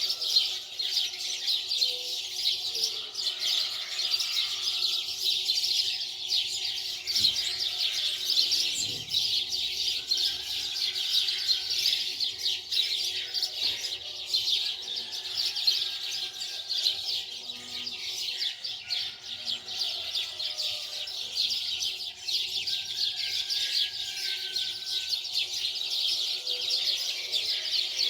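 Many small birds chirping densely and continuously, with a faint steady hum underneath.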